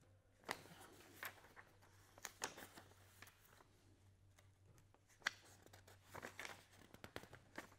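Sheets of paper being handled and shuffled: faint scattered rustles and crisp clicks, the sharpest about five seconds in.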